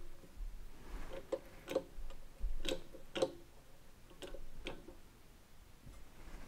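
Faint, sharp metallic clicks from a homemade bottle-jack press being worked to bend a piece of scrap steel. The clicks come in about three pairs, roughly a second and a half apart, and stop near the end.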